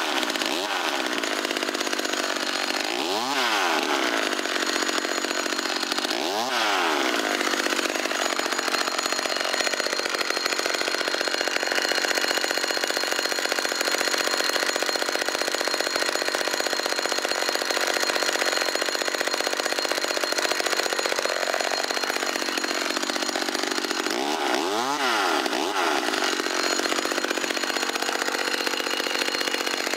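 Vintage McCulloch Mini Mac 35 two-stroke chainsaw running the whole time while cutting small firewood into kindling. The engine note shifts briefly a few times, with a long steady stretch in the middle.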